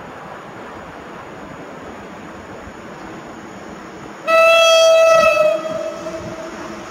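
EP07 electric locomotive's horn sounding one loud, single-pitched blast about four seconds in, held for over a second and then fading away, over the steady noise of the approaching train.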